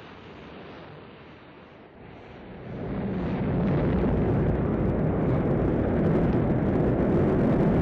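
Rocket launch: a hissing rush of engine ignition that swells about three seconds in into a loud, steady, deep rumble of rocket engines at full thrust.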